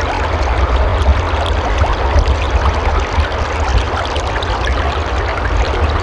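Stream water running steadily, with a constant low rumble beneath the splashing.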